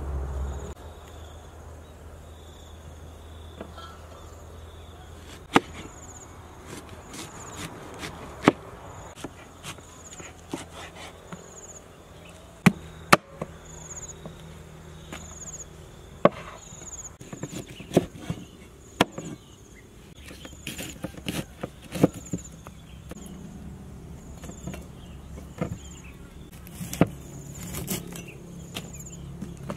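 Insects chirping in short high pulses every second or two, over sharp, irregular clicks and chops of a kitchen knife slicing fresh jackfruit on a wooden table.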